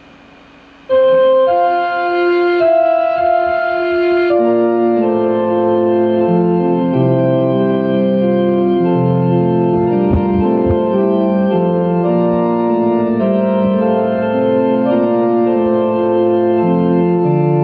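Organ music starting about a second in: single held notes at first, then full sustained chords from about four seconds in.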